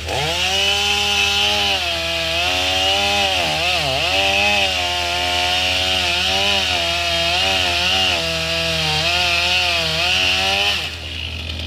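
Stihl 500i fuel-injected two-stroke chainsaw cutting through a fallen tree trunk at high revs. Its pitch sags and recovers as the chain loads up in the wood, with a deep dip about four seconds in, and the saw drops off near the end. A tractor engine idles low underneath.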